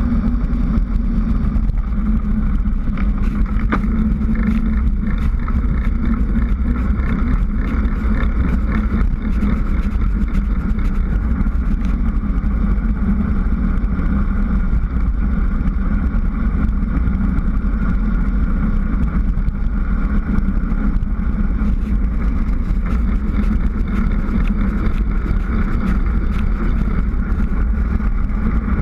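Steady rush of wind buffeting a bike-mounted GoPro on a fast road descent, with a deep rumble from the tyres and frame on the tarmac. Small ticks and knocks come through here and there.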